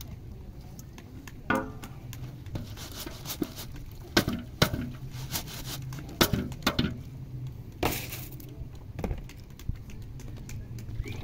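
Metal ladle scraping and knocking inside a plastic colander as pomegranate pulp is pressed through it over a pot, with irregular clicks and knocks.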